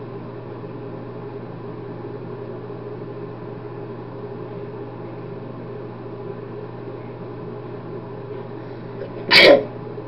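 A man sneezes once, suddenly and loudly, about nine seconds in, into both hands held over his mouth. A steady low hum runs under it.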